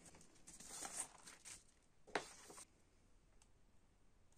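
A transparent vinyl LP being slid out of its black inner sleeve, with soft rustling and sliding for the first second and a half. There is one sharper, louder scrape about two seconds in as the record is handled and set down, then only a few faint ticks.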